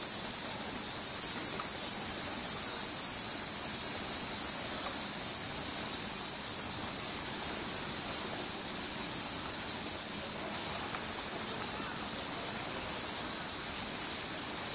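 Summer cicada chorus: a loud, steady, high-pitched shrill that holds without a break.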